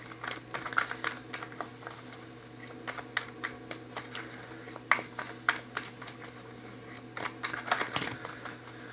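Tarot cards being shuffled by hand: a run of quick, irregular card taps and flicks, busiest near the start and again toward the end, over a faint steady hum.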